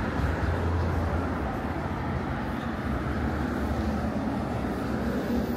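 Traffic on a city boulevard: a steady wash of road noise, with a vehicle's low engine hum loudest from about half a second to two seconds in.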